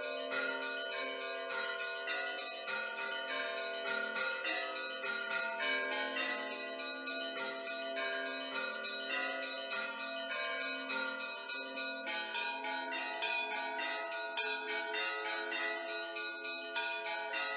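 Church bells ringing a rapid, continuous peal of many overlapping strokes.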